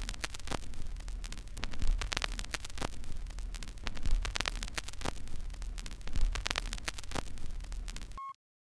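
Crackling static over a low hum, dense with irregular clicks, which cuts off suddenly near the end and is followed by a short beep.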